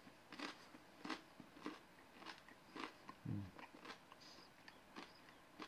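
A mouthful of beer bread being chewed, with faint crunches about every half second and a short low hum about three seconds in.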